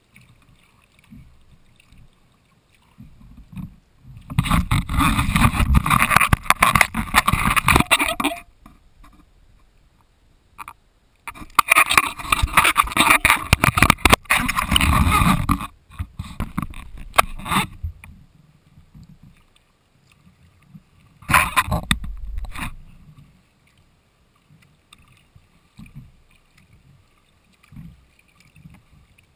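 Sea kayak moving on calm water: faint water sounds and paddle strokes at the hull, broken three times by a loud rushing noise lasting a few seconds each.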